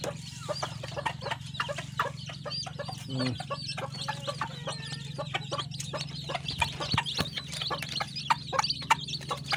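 A brood of chicks peeping in many quick, high chirps, with a brown mother hen clucking among them.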